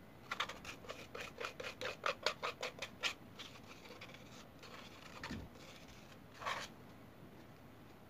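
Plastic spoon scraping a chocolate cream mixture out of a plastic mixing bowl: a quick run of scrapes, about five a second, for about three seconds. Fainter scraping follows, then a soft knock and one last scrape.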